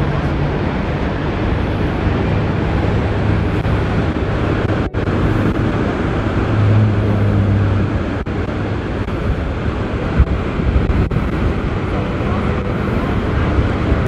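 Steady roar of rushing whitewater from Niagara Falls and the river below, a dense even rush with wind buffeting the microphone.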